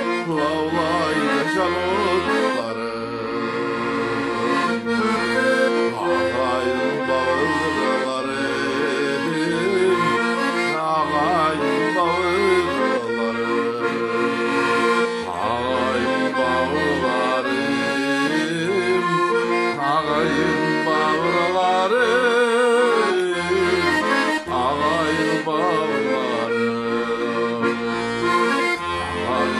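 Button accordion playing a folk tune, with chords over a regular alternating bass. A man's voice sings along in places.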